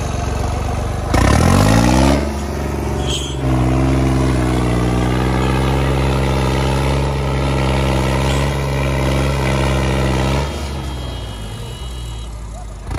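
New Holland 3630 tractor's three-cylinder diesel engine revving up sharply about a second in, then running hard and steady under heavy load while pulling a loaded trailer. It eases off near the end.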